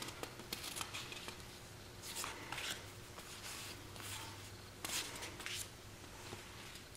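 Paper planner sticker sheets being handled and shuffled by hand: faint paper rustles and slides, several short ones scattered through.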